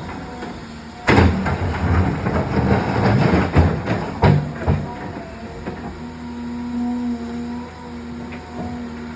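Excavator working a boulder: a sudden heavy crash of metal on rock about a second in, then a few seconds of rough grinding and clattering stone with two sharper knocks. After that the machine's diesel engine and hydraulics run with a steady hum.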